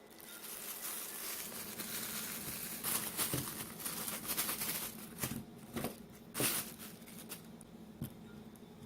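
Packaging crinkling and rustling as it is handled and opened, with several sharp clicks and knocks.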